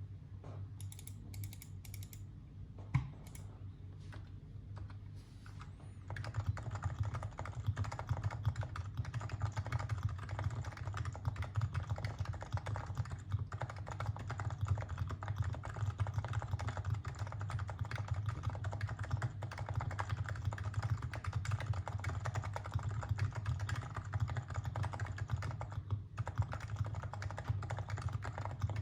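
Topre Realforce R2 PFU keyboard (45 g electrostatic-capacitive switches with Krytox-lubed sliders and Deskeys domes, in a Norbaforce Mk II case) being typed on. A few scattered keystrokes and one sharp click come first, then steady fast typing starts about six seconds in.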